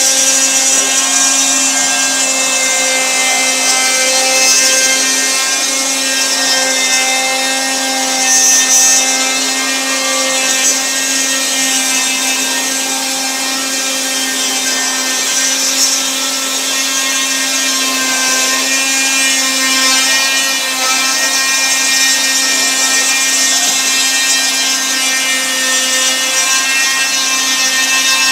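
Spindle of a homemade iron-frame CNC router running steadily as its bit mills a 300 mm circle into a wooden board: a loud, steady whine with many overtones and the hiss of the cut.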